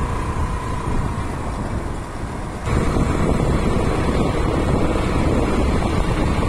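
Wind noise on the microphone with road and engine noise from a moving vehicle, a steady low rumble that gets louder suddenly about two and a half seconds in.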